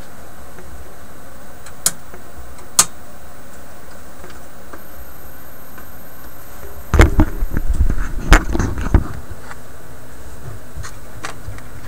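Handling of a wooden-cabinet record player: two sharp clicks about two seconds in, then a burst of knocks and thumps about seven seconds in lasting a couple of seconds, over a steady low hum.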